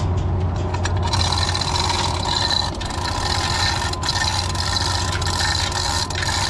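Heavy machinery engine running steadily with a low hum, under a broad rushing noise, with occasional short metallic clicks and rattles.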